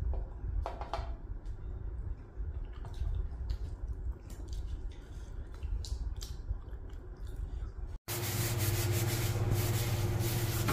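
Close-up eating sounds, chewing and small mouth clicks, as food is eaten with the fingers, over a low rumble. After a sudden break about eight seconds in, a steady hum with an even hiss takes over in a kitchen.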